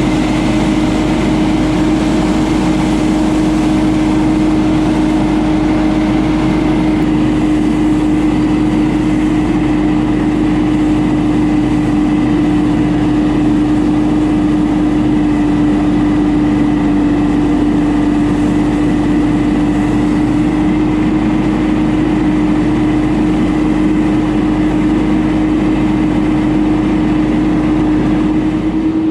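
Ferris FB2000 Hurricane stand-on debris blower running steadily: its Briggs & Stratton Vanguard engine and blower fan make a loud, even rush of air under a constant pitched hum.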